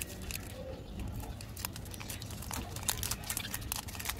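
Purple plastic wrapper and inner foil of a small Cadbury Dairy Milk bar crinkling as fingers peel it open, in quick irregular crackles.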